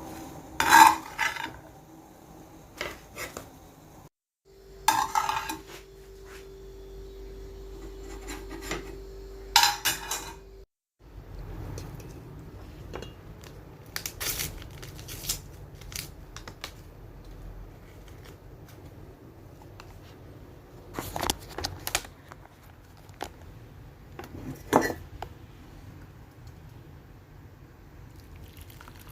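Dishes and cutlery clinking and clattering, in scattered knocks and clinks, with a steady hum through one stretch in the first half.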